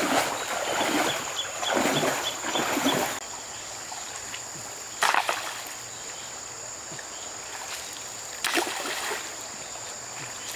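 Legs wading through knee-deep river water, splashing with each stride for about three seconds. Then the steady flow of a shallow river, with two short splashes as hands work in the water.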